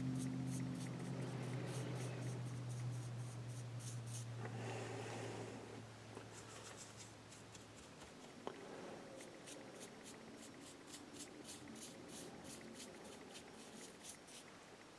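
Small paintbrush stroking paint onto a carved wooden bust: quick, light scratchy strokes, several a second, with a short break about five seconds in. A low steady hum under it fades away about halfway through.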